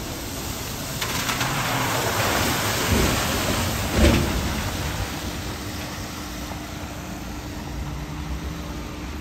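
Volvo 7900 Electric bus passing on a wet road: tyre hiss swells over a few seconds, with two thumps about a second apart at its peak, then fades away. A faint steady hum remains in the second half.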